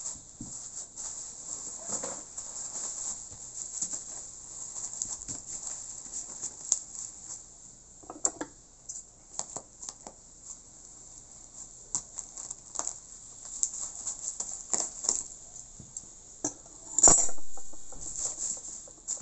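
Black plastic bag and bubble wrap crinkling and rustling as the parcel is torn and cut open with scissors, with scattered sharp crackles. A louder, longer rustle comes about 17 seconds in.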